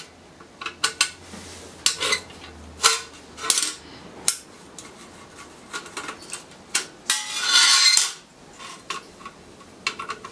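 A screwdriver and a metal ECU case and lid clinking and clattering on a steel workbench: a run of sharp metallic clicks and clanks, with a longer scraping rattle about seven seconds in.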